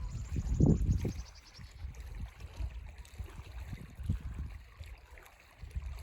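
Gusty wind rumbling on the microphone over a faint steady hiss, with a small bird's rapid trill falling in pitch in the first second or so.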